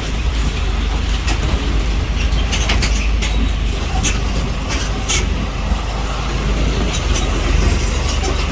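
Off-road buggy driving along a rough track: a steady low engine rumble with scattered rattles and knocks from the bumpy ride.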